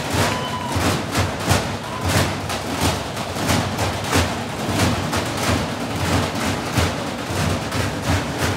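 Percussion ensemble playing a steady beat on trash cans: sticks striking plastic and galvanized metal garbage cans, with metal trash-can lids clashed together like cymbals.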